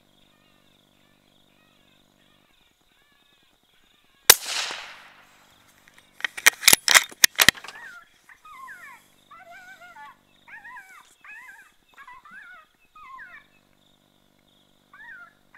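A single rifle shot about four seconds in, its report trailing off over about a second, then a quick run of about eight sharp cracks, followed by high, wavering yelps repeating about once a second from a jackal crying out after the shot.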